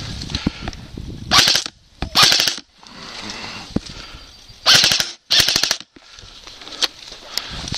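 Airsoft rifle firing four short full-auto bursts, fired as two pairs: the first pair about one and a half to two and a half seconds in, the second around five seconds in.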